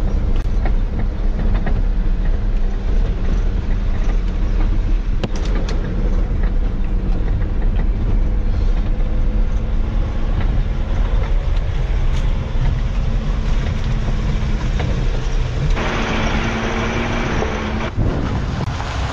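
Motorhome driving slowly over a rough gravel track, heard from inside the cab: a steady engine and road rumble with scattered knocks and rattles from stones and the body. Near the end a louder hiss comes in for about two seconds.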